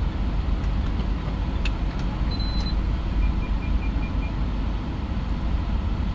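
Steady low engine and road rumble inside a moving Mitsubishi Pajero Sport's cabin. About three seconds in, a short run of about six quick high beeps sounds.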